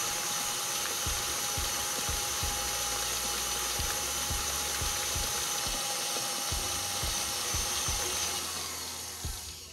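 KitchenAid Artisan stand mixer running steadily with a constant whine, its beater creaming butter, cream cheese and sugar in a steel bowl. Near the end it is switched off and winds down.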